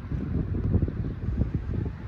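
Wind buffeting the camera microphone: an uneven, gusting low rumble.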